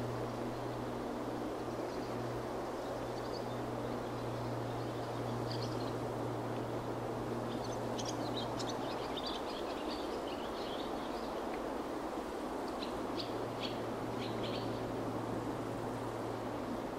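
Steady rushing wind with a low drone underneath that drops away for a few seconds in the middle and then returns. Small birds chirp above it in short bursts, busiest about eight seconds in and again around thirteen to fifteen seconds.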